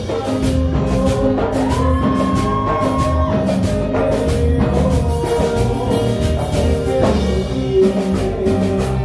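A live band playing with a drum kit keeping a steady beat under sustained melodic instrument lines, one of them sliding up and holding a note about two seconds in.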